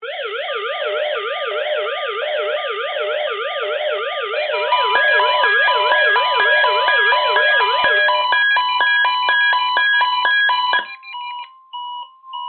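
Several NOAA weather radio receivers sounding their alert alarms, set off by the Required Weekly Test signal. Fast up-and-down warbling siren tones overlap, and rapid beeping joins in a few seconds in. The alarms cut off together near the end, leaving a few faint short beeps.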